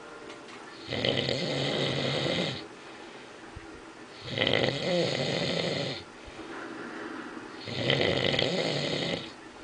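A man snoring while passed out drunk: three long snores about every three and a half seconds, each lasting about a second and a half, with quieter breathing in between.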